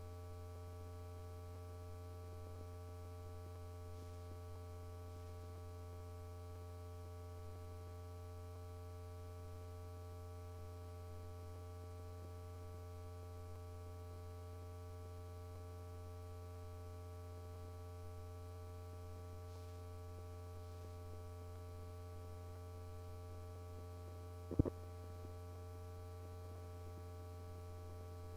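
Steady electrical hum with faint hiss, the noise of a transfer of a film with no sound track, broken once near the end by a single sharp click.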